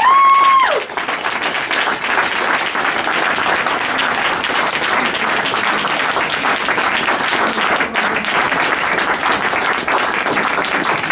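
A roomful of people applauding steadily, a dense patter of many hands clapping. In the first second a short high held note sounds over it and cuts off.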